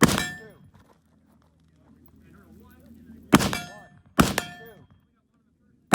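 Four rifle shots, each followed by the ring of a steel target being hit: one at the start, two close together about three and a half and four seconds in, and one near the end.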